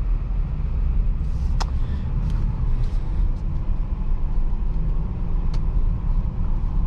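Cabin noise inside a slowly moving 2022 Jeep Grand Cherokee L: a steady low rumble of road and engine noise from its 3.6-litre V6, with a few short sharp clicks.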